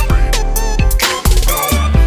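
Background music with a heavy bass line and a steady drum beat.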